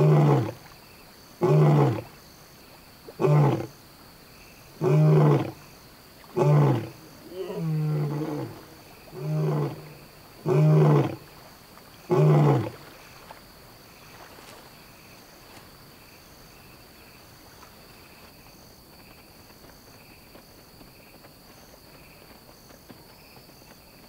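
Male African lion roaring a contact call to his scattered pride: a series of about nine deep roars roughly a second and a half apart, stopping about halfway through. After that, only crickets trilling.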